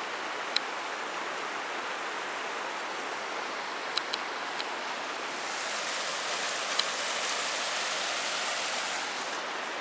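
Creek running steadily, a little louder from about five to nine seconds in, with a few light clicks.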